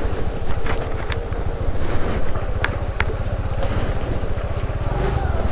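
TVS Jupiter scooter's engine running under way, a steady rapid rumble with a rushing hiss over it and scattered sharp knocks and rattles from the ride.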